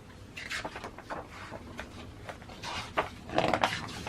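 Magazine pages being turned and handled: a run of short paper rustles and scrapes, loudest a little after three seconds in.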